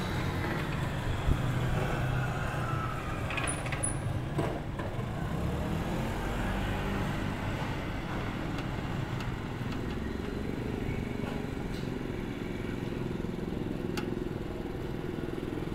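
Urban road traffic: vehicle engines running and passing in a steady low rumble.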